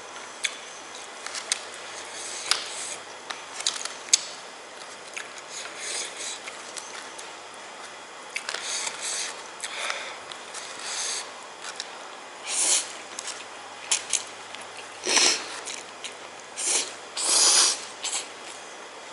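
A person eating very spicy instant noodles: short hissing sniffs and slurps, with scattered small clicks, the louder ones bunched in the second half.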